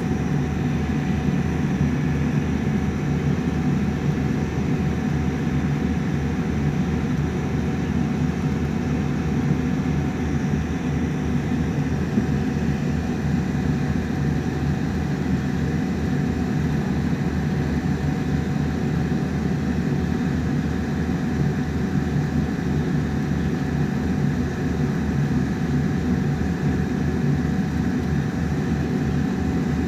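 Cabin noise of a Boeing 787-9 taxiing: a steady low rumble from the engines at taxi power and the wheels rolling on the taxiway, with a faint steady whine above it.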